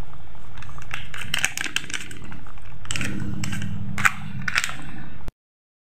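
Plastic sachet of kurma curry powder crinkling in quick, irregular crackles as it is squeezed and shaken out over a wok. A low steady hum joins about three seconds in, and the sound cuts off suddenly near the end.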